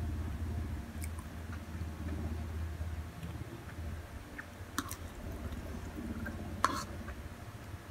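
A person chewing a mouthful of instant noodles, with soft wet mouth sounds and a few sharp clicks, the loudest about two-thirds of the way in, over a steady low hum.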